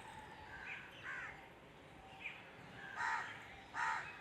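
A crow cawing twice, about three seconds in and again near the end, over a few fainter, thinner bird chirps earlier on.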